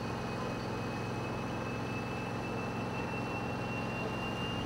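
Hawker Siddeley Nimrod's Rolls-Royce Spey turbofan engines running as the jet taxis, a steady jet noise with a thin high whine slowly rising in pitch.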